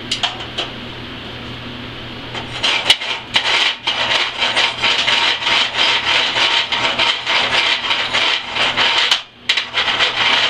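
Pointed steel slag pick scraping and chipping flux-core slag out of a root-pass weld in a steel V-groove. It makes a dense run of scratching and small clicks from about two and a half seconds in, with a brief break near the end, after a couple of light taps. The slag is coming out easily.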